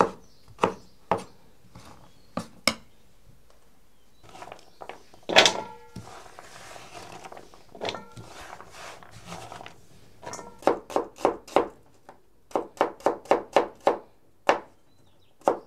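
Knife chopping on a cutting board: scattered single knocks, then two quick runs of five or six strokes at about four or five a second. About five seconds in comes one louder knock that rings briefly.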